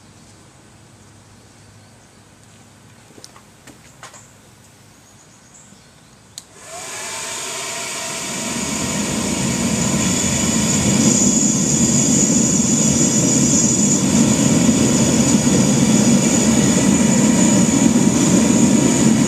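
The hair-dryer blower of a homemade forced-air propane forge clicks on about six seconds in, its motor whining up to speed, and the burner's rush builds over the next few seconds to a steady loud roar as the forge lights on its first firing.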